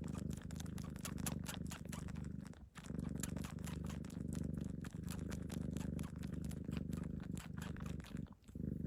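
A cat purring steadily, a low continuous rumble that breaks off briefly twice, about a third of the way in and near the end.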